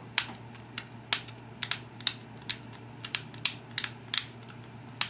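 Copper-tipped pressure flaker pressing small flakes off the edge of an obsidian biface: sharp, irregular clicks and snaps, about three or four a second, as the edge is bevelled. A steady low hum runs underneath.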